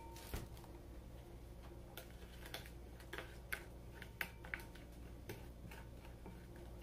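A spoon stirring a sauce mixture in a bowl, giving scattered light clicks and taps against the bowl's sides.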